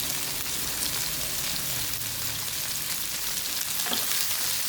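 Chicken and bitter gourd (ampalaya) sizzling steadily in a frying pan.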